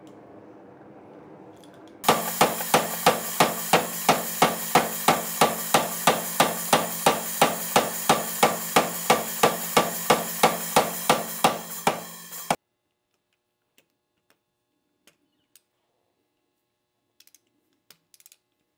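Coal forge fire burning with a low rush for about two seconds, then a 110-pound Big Blu air power hammer pounding a hot Damascus billet with drilled holes between its flat dies, about three even blows a second over a steady hum. The hammering lasts some ten seconds and cuts off suddenly, leaving only a few faint ticks.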